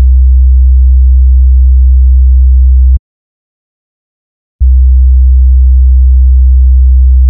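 A pure sine-wave test tone at a low pitch, around 63 Hz, played loud for about three seconds, cut off, then played again about a second and a half later: a frequency-identification question in a stage-sound ear-training test.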